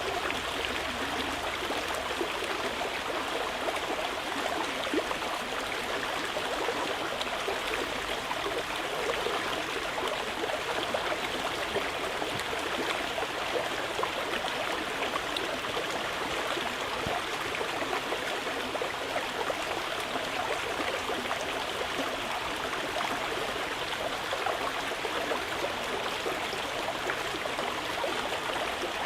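Mountain river flowing over rocks: a steady rushing and gurgling of water.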